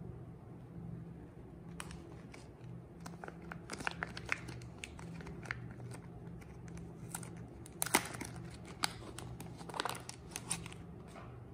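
Glossy soap wrapper crinkling and tearing as a bar of soap is unwrapped by hand: a scatter of sharp crackles starting about two seconds in, loudest around eight seconds in. A steady low hum runs underneath.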